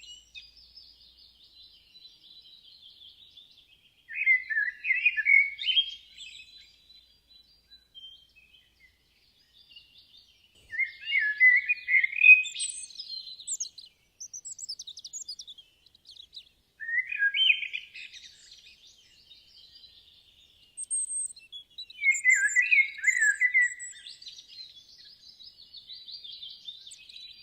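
A songbird singing: four loud phrases of quick, warbling high notes, roughly every six seconds, with fainter chirping in between.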